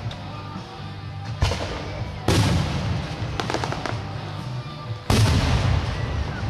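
Aerial firework shells bursting with sharp booms, three in all, the loudest about five seconds in, with a burst of crackling just after halfway.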